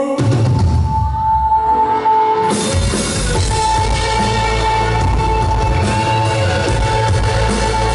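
Loud live rock band music recorded from the audience. For about the first two and a half seconds the sound thins to mostly bass, then the full band comes back in with drums and a long held high note.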